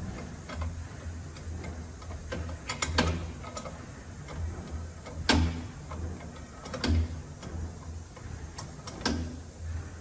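Wrench turning the bolt of a bush-press tool on a truck brake caliper, with sharp metallic clicks every second or two as the bush is drawn into the caliper, over a low steady hum.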